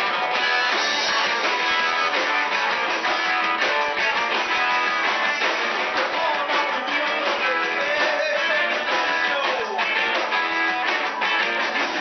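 Live rock band playing: electric guitars over a drum kit, steady and loud, recorded with little bass.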